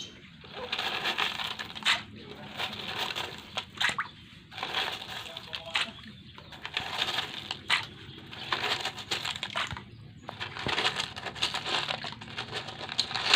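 Small coloured gravel stones rattling and clicking as hands dig through the load of a toy truck, with irregular scraping and many short, sharp clicks.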